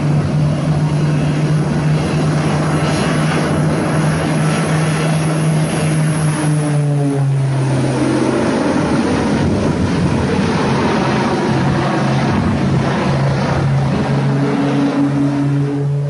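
Twin-engine propeller airplane flying low and close, its propellers giving a loud, steady hum over a rushing noise. The hum drops slightly in pitch about seven seconds in.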